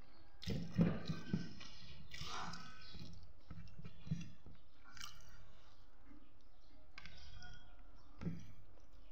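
Close-up chewing and mouth sounds of someone eating soft rice and chicken curry. Several sharp clicks come about a second in, and smaller ones are scattered through the rest.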